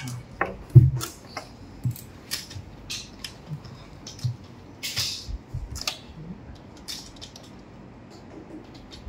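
Computer keyboard and mouse clicking irregularly, a scatter of sharp key and button clicks that thin out near the end, with one louder knock about a second in.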